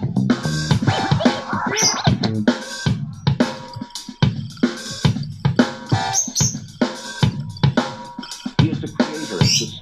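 Music with a drum-kit beat playing through a JBL Go 2+ portable Bluetooth speaker for a sound test.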